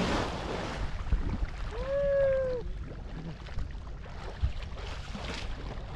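Water splashing heavily as swimmers thrash through a shallow river pool, settling to softer sloshing as they wade. A short pitched call sounds about two seconds in.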